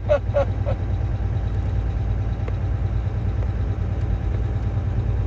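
Semi truck's diesel engine running steadily, a low, even rumble heard from inside the cab.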